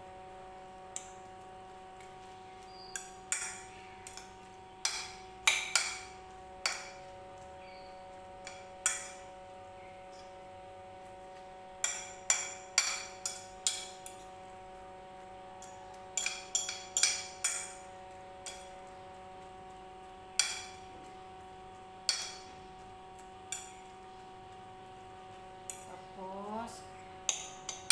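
A metal fork clinking and scraping against a ceramic plate while mixing egg with grated potato and carrot: irregular sharp clinks, some in quick clusters, over a steady background hum.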